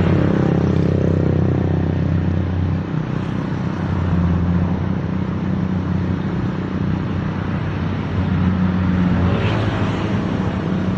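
Engine of a rice-harvesting machine running steadily under load, its hum dipping briefly about three seconds in.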